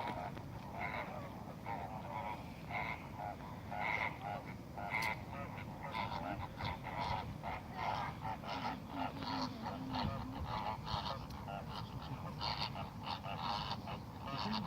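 A flock of flamingos honking: many short calls overlapping one another in a dense chatter.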